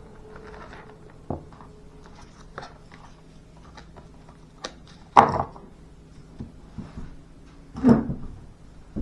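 Scattered knocks and clicks of knives and their boxes being handled and set down on a table, with two louder thuds about five and eight seconds in.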